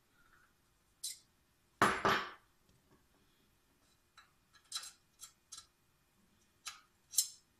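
A small hand reamer scraping metal out of a brass saxophone key post, widening the hole for an oversized pivot rod: short metallic scrapes and clinks with pauses between them. The loudest scrape comes about two seconds in, with a quicker run of smaller ones around five seconds and another near the end.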